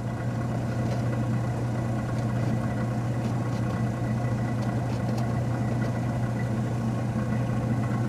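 Steady low machine hum that holds at an even level, with a few faint ticks.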